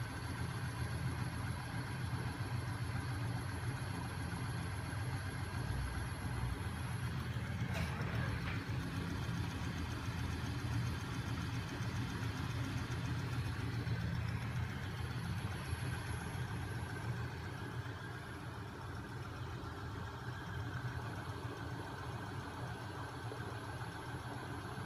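A homemade magnet crankshaft machine, driven by a small 12 V electric motor, running steadily: a low hum and mechanical whir from the spinning flywheel, crankshaft and swinging magnet stacks. There is one short click about eight seconds in.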